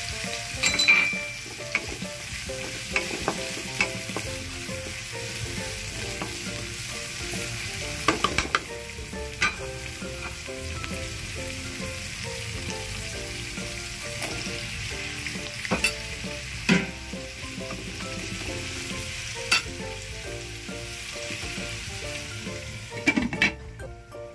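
Food sizzling in hot oil in a pan while it is stirred, the utensil knocking against the pan several times. The sizzle dies down near the end.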